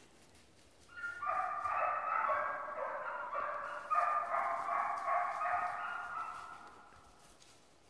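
A dog howling: one long drawn-out call with several overlapping pitches. It starts about a second in and fades out near the end.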